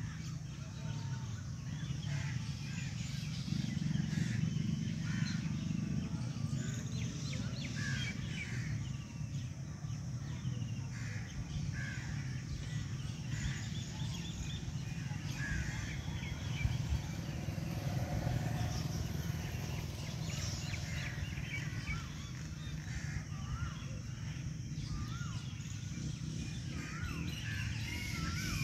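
Outdoor ambience of assorted birds calling and chirping in short scattered calls, over a steady low rumble.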